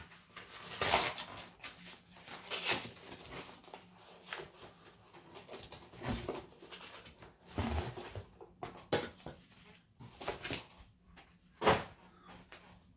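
Cardboard comic mailer being opened by hand: an irregular run of rustles, scrapes and crinkles of cardboard and tape, with one sharper crackle near the end.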